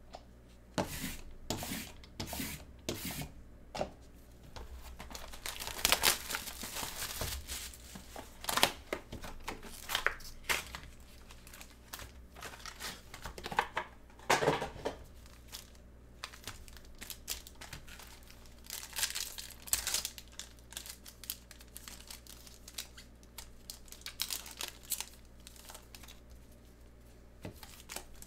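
Foil-wrapped Prizm basketball card packs and their retail box handled and torn open by hand: irregular bursts of tearing and crinkling.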